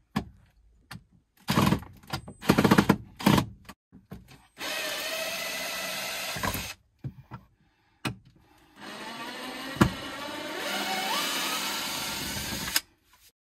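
Cordless drill-driver backing screws out of a wooden battery tray: a few short bursts of the motor, then a run of about two seconds and a longer run of about four seconds. The screw is not coming out easily.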